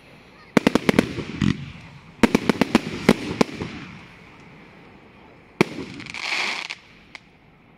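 Fireworks going off: quick clusters of sharp bangs and crackles from aerial shell bursts, starting about half a second in and again from about two to three and a half seconds. Near the end comes a single bang followed by a short hiss.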